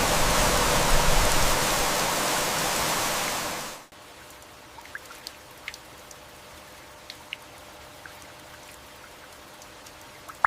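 Heavy rain, a loud even hiss, that cuts off abruptly about four seconds in. It gives way to quieter, lighter rain with scattered single drops tapping sharply close by.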